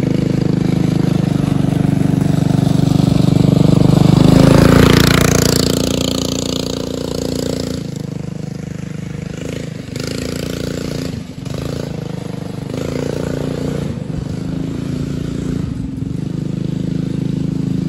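Go-kart buggy's swapped-in Duromax 7 hp single-cylinder engine running as the buggy drives around a dirt clearing. It is loudest as it passes close about four to five seconds in, then quieter as it moves off and circles back.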